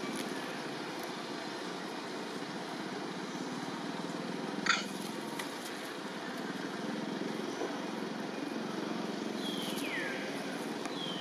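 Steady outdoor background noise, with a brief sharp squeak about halfway through and a high squeal falling in pitch near the end.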